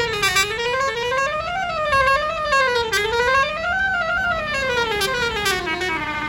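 Bus basuri horn, a melodic telolet horn, playing one continuous wavering tune that slides smoothly up and down in pitch.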